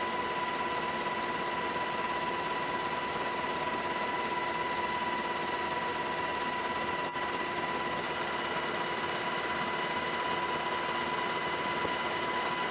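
Steady helicopter cabin noise: an even rush of engine and rotor with a constant high whine.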